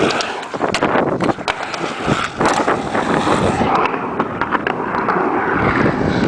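Skateboard wheels rolling over rough asphalt and up a small ramp, a steady gritty rumble with several sharp clacks of the board, and wind buffeting the microphone.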